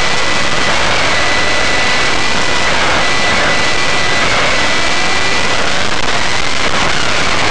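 Onboard sound of a small radio-controlled model vehicle under way: loud, steady rushing noise with a high, steady whine running through it.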